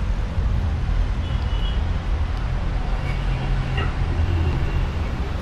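Steady low rumble of passing road traffic.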